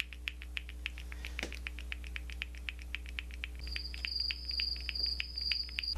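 Rapid, evenly spaced ticking like a clock, joined about three and a half seconds in by a high, pulsing cricket chirp: a comedic ticking-and-crickets sound effect marking an awkward wait.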